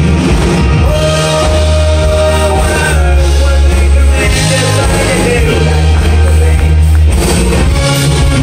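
Live rock band playing loudly: a male lead vocal singing into a microphone over electric guitar, bass and drums, heard through the PA.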